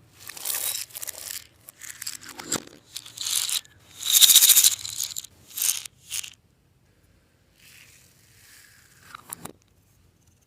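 Clear slime being squished and worked by hand: a run of irregular wet crackling squelches, loudest about four seconds in, fading to softer handling and a sharp click near the end.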